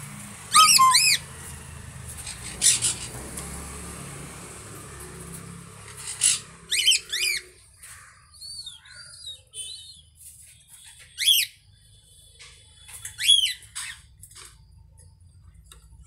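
Small pet parrots calling from their cages: about six loud, shrill calls, each rising and falling in pitch and lasting about half a second, at irregular intervals, with softer chirps between them.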